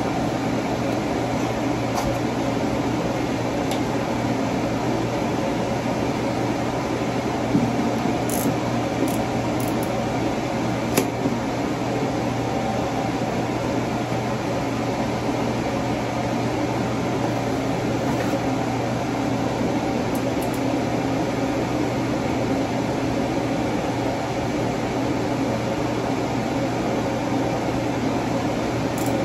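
Steady hum and hiss of a running fan, with two light clicks a few seconds apart.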